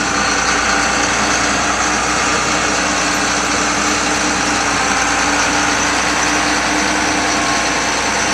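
John Deere 9610 combine's diesel engine running steadily, with a constant hum.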